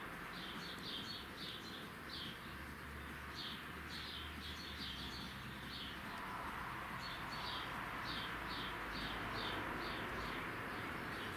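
A small bird chirping, short high chirps a few a second in runs, over a steady background hiss that swells a little about halfway through.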